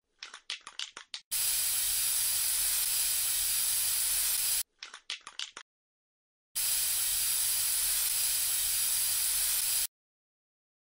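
Aerosol spray-paint can shaken with a quick rattle of clicks, then sprayed in a long, steady hiss. The shake-and-spray happens twice, each hiss lasting about three seconds.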